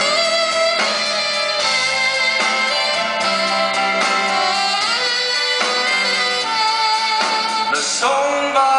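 Instrumental introduction to a song at a live concert: sustained notes and chords that change about every second, with no singing yet.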